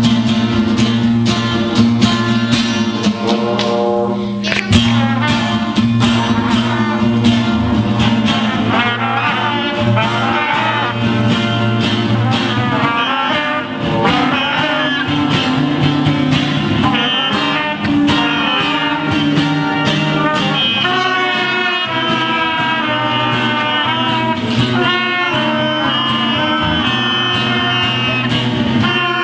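Instrumental passage of a song: a lead melody, which the tagger takes for brass, over guitar and a steady beat.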